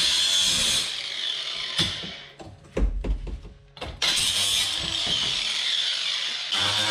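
Angle grinder cutting sheet steel on a car's rear wheel arch, then switched off about a second in and winding down. A few clicks and knocks come while it is stopped. It is switched on again about four seconds in and runs at full speed.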